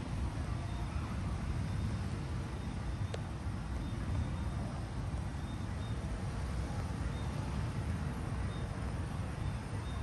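Gas fire pit burning, its flames making a steady low rumble, with a single faint click about three seconds in.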